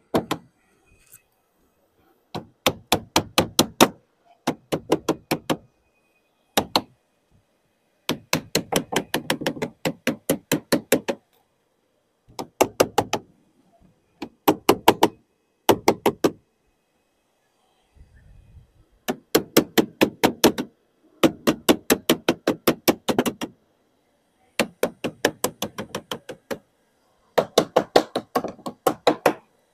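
Lead dresser striking sheet lead to dress a dormer jamb round the corner: quick knocks, about five a second, in runs of one to three seconds with short pauses between.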